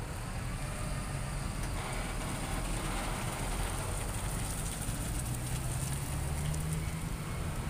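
Diesel container truck pulling away at low speed: the engine runs steadily under road and trailer rumble, its note climbing a little about two thirds of the way in.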